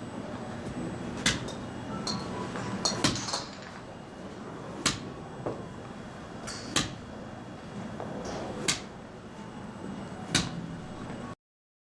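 Golf shots at a practice range: about six sharp club-on-ball strikes, each a crisp crack, coming roughly every two seconds. The sound cuts out completely near the end.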